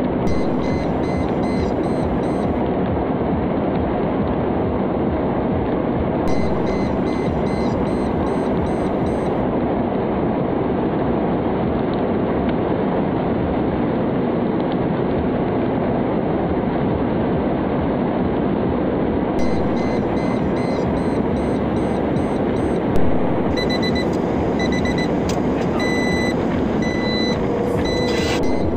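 Mercedes-Benz dashboard warning chime beeping rapidly in repeated bursts over the steady noise of the engine, tyres and wind as the car runs at high speed and high revs. The beeping is densest in the last few seconds, with a brief knock near the end.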